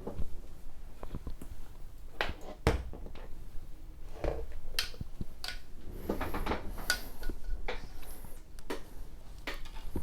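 Camera gear being handled on a desk: scattered clicks, light knocks and rustles, with one sharper knock a little under three seconds in.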